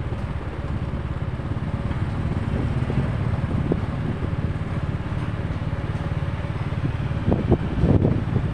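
A motor vehicle running with a steady low rumble, louder and rougher near the end.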